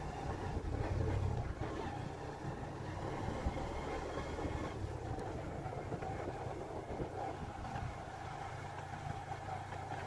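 Motorcycle engine running at a steady pace, with wind and the rumble of tyres on a rough gravel road.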